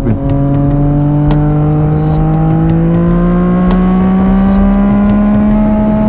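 Motorcycle engine pulling steadily under way, its pitch rising slowly as the bike accelerates in one gear after a shift at the start, with wind rush at the rider's helmet.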